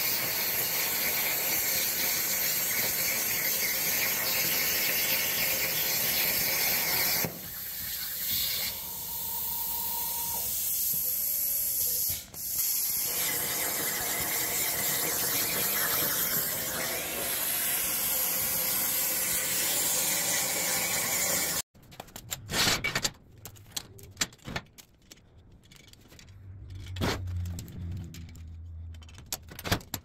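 CNC plasma torch cutting steel plate: a loud, steady hiss that drops quieter for a few seconds about a third of the way in. It cuts off suddenly about two-thirds through, followed by scattered knocks and clatter of steel being handled on a steel welding table.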